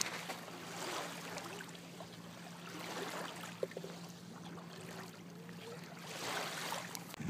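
Small waves washing onto a sandy lakeshore, the wash swelling and fading every few seconds.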